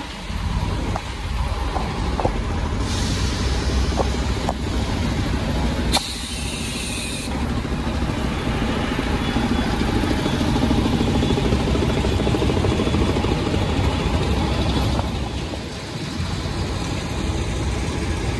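Heavy diesel dump truck engines idling, a steady low rumble. Two short bursts of air-brake hiss come about three seconds in and about six seconds in, the second starting with a sharp pop.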